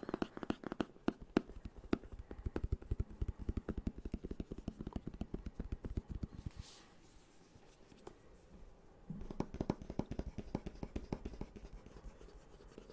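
Fingers rapidly tapping and scratching on the rough-surfaced cardboard box of a webcam, close to the microphone. The tapping drops away for a few seconds around the middle, with one short scrape, then starts again.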